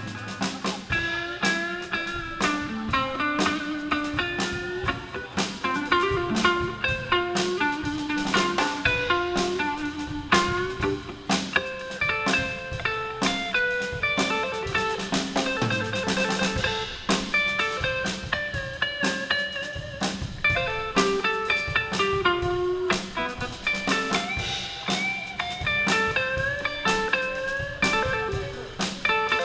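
Live blues band playing an instrumental passage: a guitar plays a busy lead line of short notes over a steady drum-kit beat.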